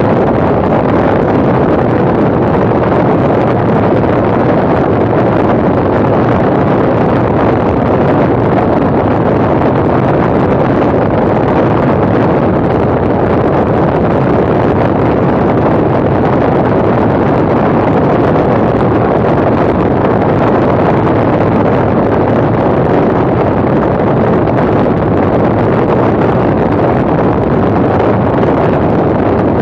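Steady wind noise on the microphone of a camera mounted outside an ultralight aircraft in cruising flight, with the aircraft's engine running underneath. The sound does not change throughout.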